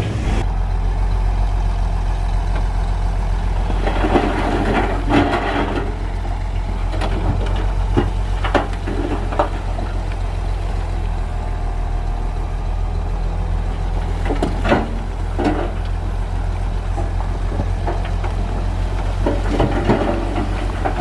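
Shantui heavy bulldozer's diesel engine running steadily under a low drone, with scattered clanks and short scraping bursts of its tracks and pushed stone, thickest about four to six seconds in and again near the end.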